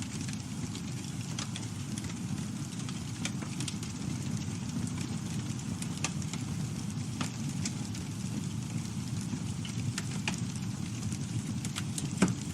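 Campfire burning with a steady low rumble of flames and scattered crackles and pops from the wood, one louder pop near the end.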